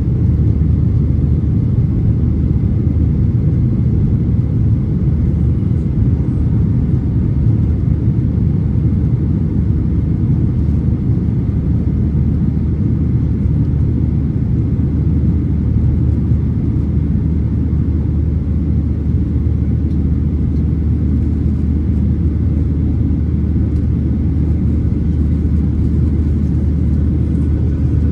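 Steady low rumble inside the cabin of a Boeing 737-800 in its climb after takeoff: CFM56-7B engine and airflow noise heard at a window seat beside the wing.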